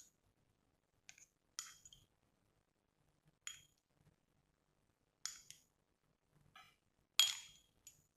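A spoon clinking against a container, about eight short separate clinks spaced irregularly, the loudest near the end.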